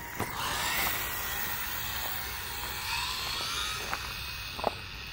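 Arrma Senton RC truck's electric motor and drivetrain whining, rising in pitch as the truck accelerates away at full throttle on a speed run, with tyre hiss. A sharp click near the end.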